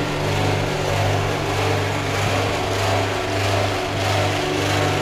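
Steady mechanical hum of refrigeration compressors running in a machine room. A low drone swells and fades a little more than once a second over steady lower tones.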